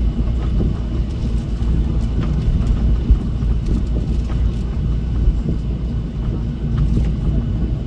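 Steady cabin rumble of a Jeju Air Boeing 737 airliner taxiing, its jet engines running at low thrust, with a few faint rattles and bumps as it rolls.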